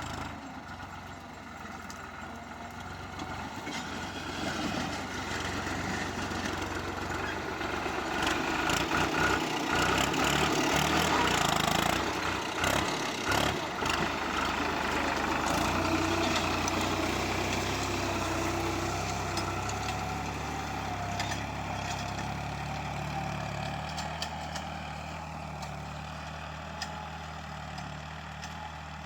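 Tractor engine running steadily while ploughing. It grows louder toward its loudest point, with a cluster of knocks and rattles, then slowly fades away.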